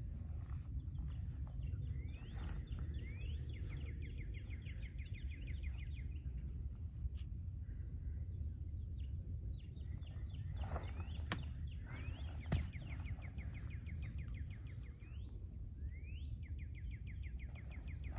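A songbird sings three times, each song one or two rising notes followed by a fast, even trill, over a steady low outdoor rumble. There are a few sharp clicks near the middle.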